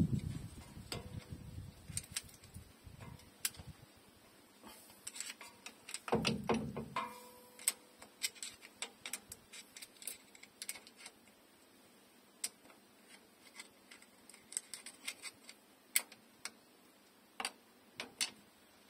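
Irregular light metallic clicks and taps of a screwdriver working at the ring gear and carrier of a 2004 Dodge Ram 1500's open rear differential, with a brief dull rumble about six seconds in.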